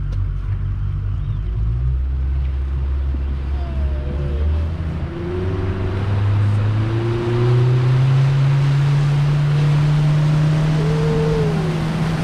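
Speedboat's outboard motor running and opening up as the boat gets under way, its pitch stepping up twice and then holding high at planing speed, over the rush of water from the hull.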